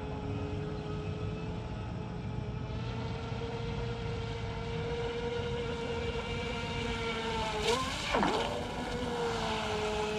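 Pro Boat StealthWake 23 RC deep-V boat's brushed electric motor and propeller running on a 2S LiPo, a steady high whine. About eight seconds in the boat comes closer and gets louder, and the pitch dips sharply and recovers before it settles back to a steady whine.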